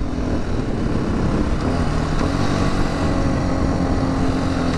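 The single-cylinder four-stroke engine of a 2016 Husqvarna FE 501 S dual-sport motorcycle running at road speed. Its pitch rises a little about two seconds in and then holds steady. Wind rushes over the helmet-mounted microphone.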